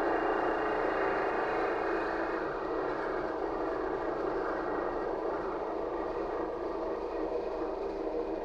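Steady running noise inside a LiAZ-5280 trolleybus cabin while under way: tyre and running-gear rumble with a few faint steady tones, easing off slightly after the first few seconds.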